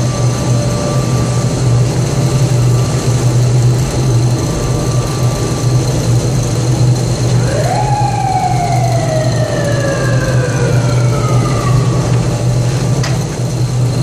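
Aluminium chip melting furnace running with a loud, steady low hum and constant high tones from its burners and fans. About halfway through, a mechanical whine rises sharply and then falls slowly for about four seconds, and a single click comes near the end.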